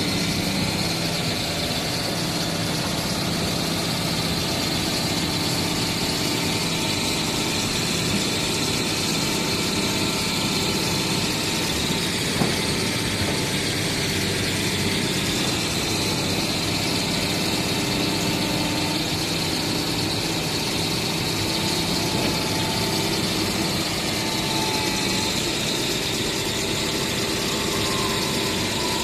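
Caterpillar 320D excavator's six-cylinder C6.4 diesel running steadily while the hydraulics work the arm and raise the bucket, with a faint whine and one short click about twelve seconds in. The engine is running normally again after an engine-not-revving fault caused by a poor ECM ground was fixed with a jumper.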